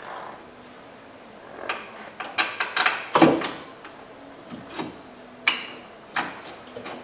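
Metal clicks, clinks and knocks of hand work on a front brake caliper as its bolts are started by hand, the loudest clank about three seconds in.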